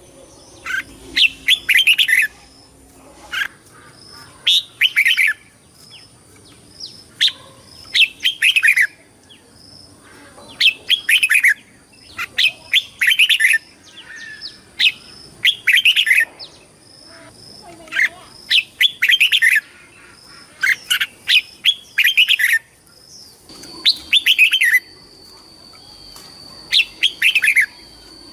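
Red-whiskered bulbul singing: short, bright whistled phrases of quick falling notes, repeated every second or two.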